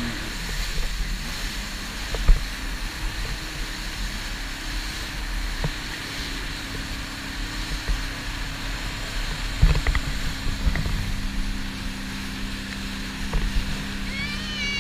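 Jet ski running at speed over choppy water: a steady engine hum under the rush of wind and spray, with a couple of sharp thumps as the hull slaps the chop. A voice calls out near the end.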